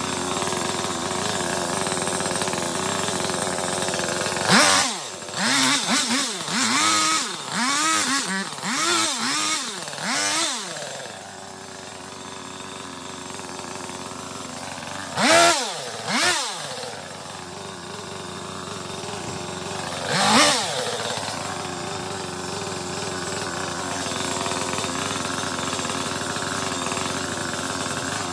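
Petrol chainsaw idling, revved up in a quick run of short bursts about a second apart, then in a few single revs, as it cuts back elder stems.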